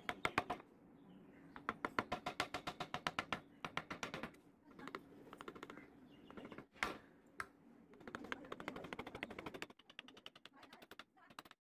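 Rapid, regular tapping of a small carving chisel cutting into softwood, in quick runs of about eight to ten taps a second with short pauses between them.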